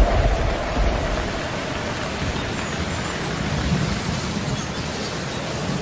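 Steady hiss of heavy rain, with a low rumble of thunder dying away in the first second.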